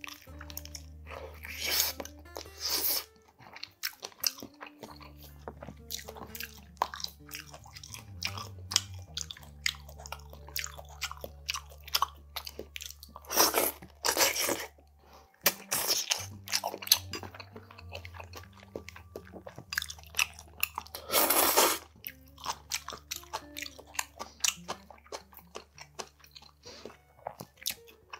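Close-up eating sounds of spicy steamed monkfish (agujjim) with greens: steady crunching and chewing with wet mouth clicks, broken by several loud slurps from a bowl of sauce.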